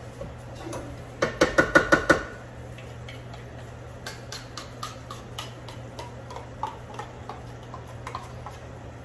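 Metal kitchen utensil against a tin can: a quick run of about eight ringing metallic taps about a second in, then scattered lighter clicks and scrapes as the can is emptied. A low steady hum stops about two seconds in.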